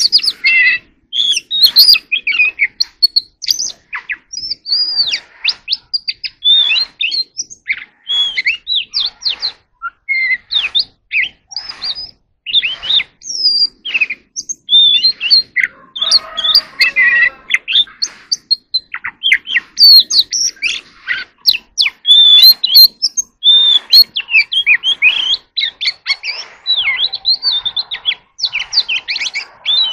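Oriental magpie-robin singing: a long run of quick, varied high whistles and chirps with short pauses between phrases. About halfway through, a harsher, lower call breaks in for a couple of seconds.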